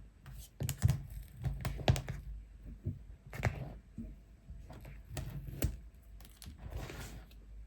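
Paper pull-tab seal being torn from a cardboard retail box while the box is handled: scattered taps and clicks, with two longer tearing sounds about three and a half and seven seconds in.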